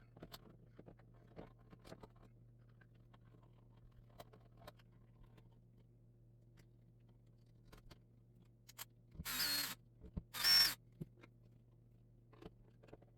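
Wires being pushed into an electrical wall box and a wall control switch being handled and screwed to the box: scattered faint clicks and knocks, then two short scraping bursts about a second apart near the end.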